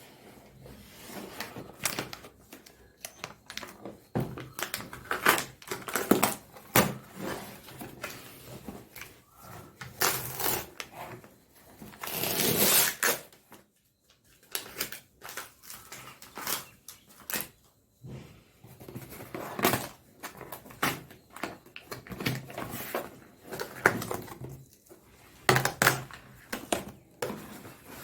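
Cardboard packaging of a gaming headphone box being opened and handled by hand: irregular clicks, knocks and rustling, with one longer noisy stretch of about a second and a half near the middle.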